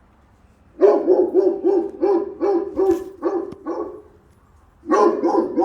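A dog barking in quick runs of about three barks a second: a string of about nine barks starting about a second in, a short pause, then another run near the end.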